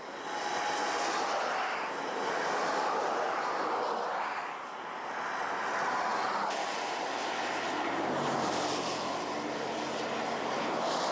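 Steady rushing vehicle noise, traffic and engines, with an abrupt change in its sound about six and a half seconds in.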